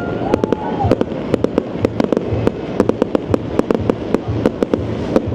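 Aerial fireworks going off in a dense barrage: many sharp pops and cracks a second over a deeper booming rumble.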